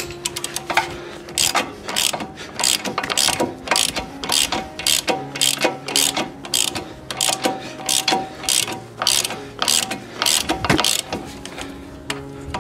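Socket ratchet clicking in short runs while working the front brake caliper bolts.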